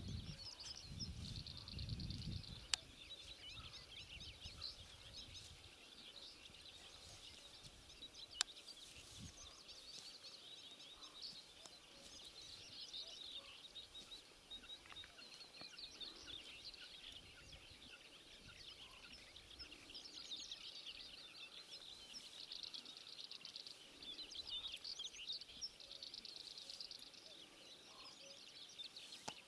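Faint, continuous high chirping and twittering of small songbirds. Two sharp clicks come about three and about eight seconds in.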